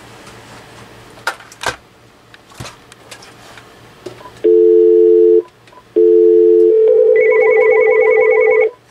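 A few clicks, then a steady low two-note telephone tone twice, the second running straight into the Uniden Loud & Clear cordless phone's loud, fast-warbling ring for an incoming call. The ring stops shortly before the end.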